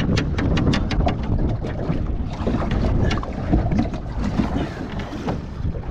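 Wind buffeting the microphone on a small boat on open water, with a quick, even run of sharp clicks, about six a second, during the first second.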